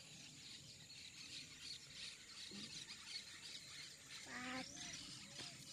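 Faint outdoor ambience with birds chirping. Near the end a short call repeats quickly, about three times a second.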